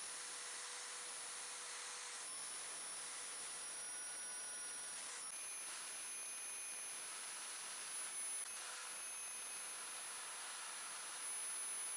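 Electric drill spinning a small brass wire wheel, brushing rust off steel scissor parts: a steady hiss with a high motor whine whose pitch shifts a couple of times.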